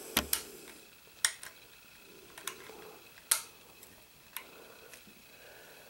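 Several sharp metallic clicks spread over a few seconds as a Navy Arms 12 gauge side-by-side percussion shotgun's hammers and lock are handled.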